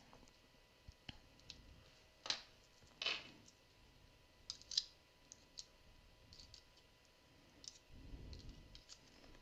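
Faint scattered clicks and light rattles of AAA batteries and a plastic battery holder being handled while loading an electric nail file, with the sharpest clicks about two and three seconds in and a low rustle of handling near the end.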